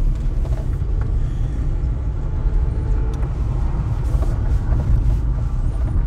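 Car driving onto and along a dirt road: a steady low rumble of engine, tyres and road, picked up by a camera mounted outside on the car.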